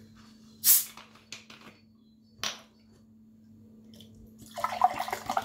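A bottle of mineral water opened with a short sharp hiss, and a second shorter hiss a couple of seconds later; then, from about four and a half seconds in, water pouring from the bottle into a glass.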